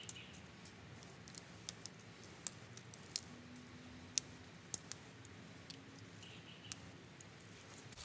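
Sharp, irregular crackles and snaps of dry tinder being broken up between the fingers, about a dozen, unevenly spaced.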